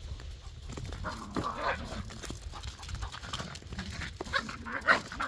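Jack Russell terrier puppies giving short high-pitched whines and yips, one cluster about a second in and another near the end, the loudest just before the end.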